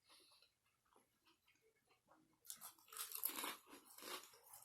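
Close-miked crunchy chewing of a chicken salad sandwich with lettuce and pickles. It is near silent at first, and the crunching starts about halfway in as a quick run of loud strokes.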